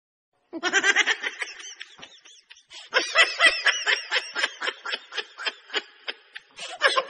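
High-pitched giggling: quick runs of short laughs, a first spell starting about half a second in and a longer one from about three seconds in.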